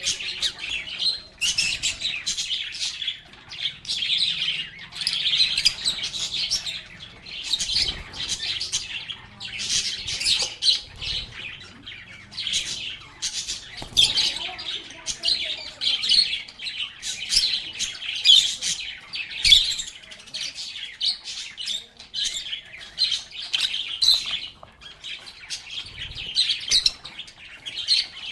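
A group of lovebirds (Agapornis) chirping and chattering constantly, with shrill, overlapping high calls and a few sharper squawks. A few sharp clicks are heard now and then.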